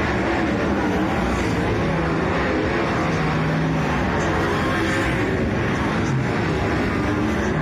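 Engines of winged speedway race cars running hard at speed on a dirt oval, a continuous loud engine drone as the cars pass.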